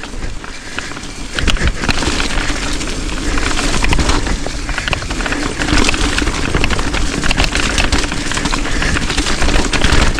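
Wind buffeting the action camera and a steady rattle of knocks and clatter as a bike descends a rough, rocky trail.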